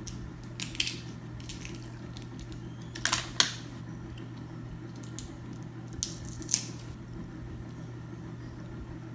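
Snow crab leg shells cut with kitchen shears and cracked apart by hand: scattered sharp snips and cracks, the loudest a close pair about three seconds in, over a steady low hum.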